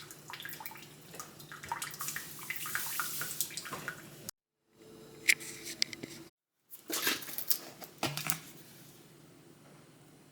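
Water running in a small room, with scattered small clinks and taps. It is broken twice by abrupt cuts to dead silence and fades to a faint steady hiss near the end.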